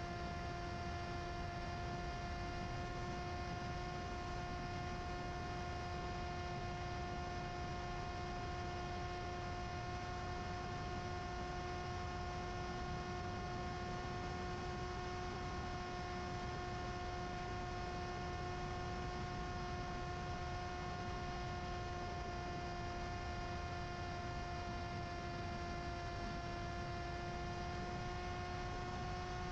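Brushless electric motor and propeller of a Mini Drak flying wing running at steady cruise throttle, heard from on board: a steady hum with a stack of overtones over a rush of air, its pitch creeping slightly up near the end.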